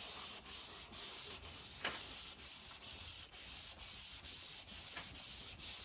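Hand sanding with strip sandpaper on a flexible aluminium T-bar sanding block, worked over a curved car door panel in quick, even back-and-forth strokes of about two and a half a second, with a dry, high-pitched scrape.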